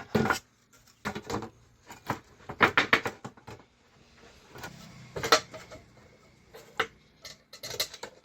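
Irregular clicks, knocks and clatter of hands and tools handling the repaired ECU and its fittings while it is being refitted into the car.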